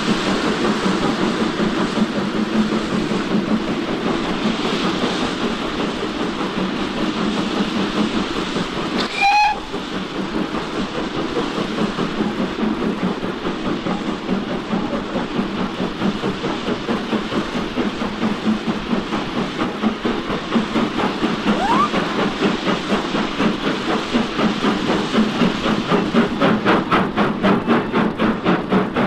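Model steam locomotive sound: one short whistle blast about nine seconds in, then rapid, regular chuffing that grows stronger toward the end, over steady background noise.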